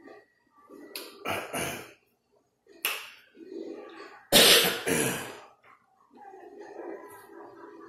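A woman coughing, about five sharp coughs over four seconds, the loudest pair about halfway through.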